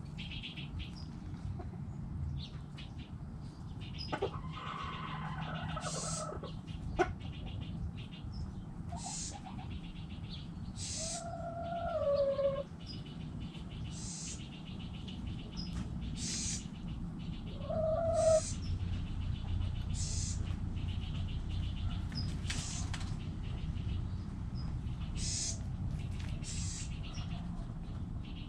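Backyard chickens calling, with two loud, drawn-out calls that fall in pitch, about 11 and 18 seconds in, over frequent short high chirps and a steady low hum.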